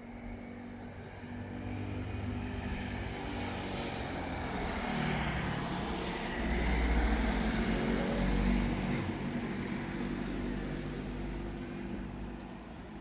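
Loganair airliner on approach with its landing gear down, passing by. Its engine sound swells, is loudest about seven to nine seconds in, then fades away.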